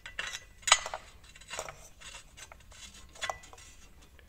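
Metal clinks and scrapes, four or so sharp ones with the loudest a little under a second in, as a lambda (oxygen) sensor is fitted and screwed into a nut welded onto the exhaust.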